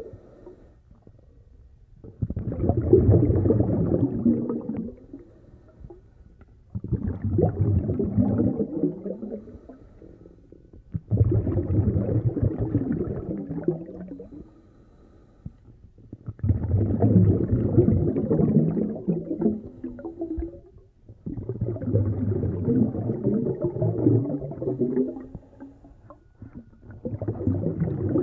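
A snorkeller breathing through a snorkel, heard muffled underwater: long, low, rough breaths of two to four seconds each, about every five seconds, with short quieter pauses between.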